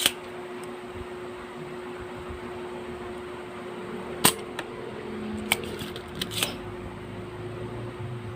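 Sharp clicks of a spring-loaded desoldering pump being cocked and fired to suck solder from a mouse micro switch's pins: one at the start, a loud one about four seconds in, and a few more between five and a half and six and a half seconds, over a steady hum.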